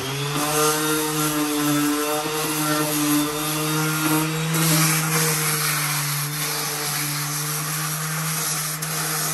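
Electric sander with 60-grit paper sanding a stained concrete fountain, wearing through the stain to give it a weathered look. The motor comes up to speed at the start, then runs with a steady hum under a gritty hiss of abrasion.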